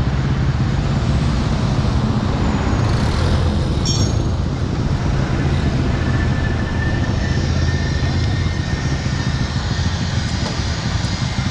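Motorcycle engines running steadily at idle, a constant low hum with noise above it; a brief click about four seconds in and a faint high steady tone for a few seconds after.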